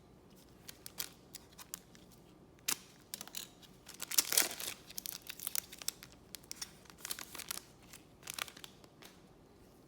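Trading cards being handled and sorted by hand: a string of short crinkling, rustling strokes, loudest about four seconds in and again around seven seconds.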